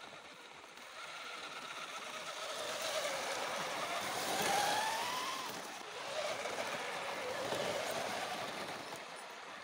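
Radio-controlled scale crawler trucks driving past on sand: the electric motor and gear whine rises in pitch as the first truck comes close, loudest about four and a half seconds in, then swells again as the second truck passes, over a rough noise from the tyres on the ground.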